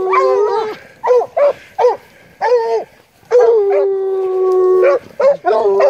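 Hunting hounds baying on a scent: a few short chop barks, then long drawn-out bawls held over a second each, several dogs' voices overlapping.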